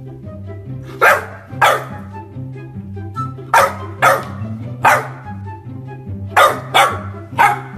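Golden retriever puppy giving short, sharp barks, about eight of them in quick groups of two or three. Background music plays underneath.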